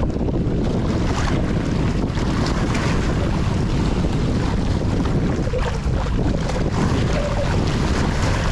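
Wind buffeting the microphone, with small waves lapping and splashing on the shoreline rocks.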